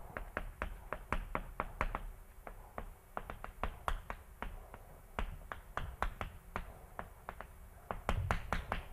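Chalk clicking and tapping against a blackboard as words and symbols are written: an irregular run of sharp taps, several a second.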